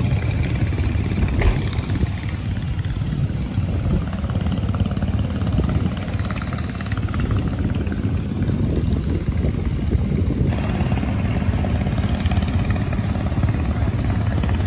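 Steady low drone of engines running: a car and a van driving slowly past, with motorcycles idling in a queue. There is a single brief knock about a second and a half in.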